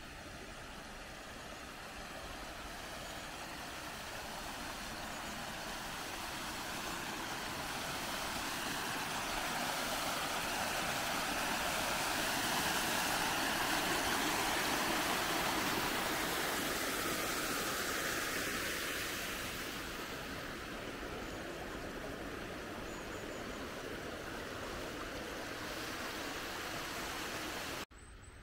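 Water pouring down a small stone cascade, a steady rushing that grows louder, peaks around the middle and fades away again.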